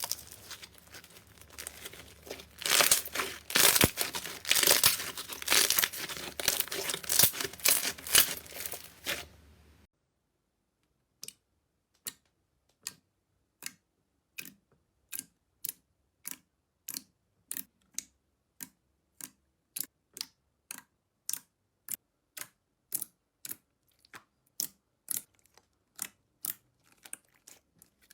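Slime worked by hand close to the microphone: about ten seconds of dense crackling and squelching, then after a sudden stop a steady run of short sharp pops, about three every two seconds.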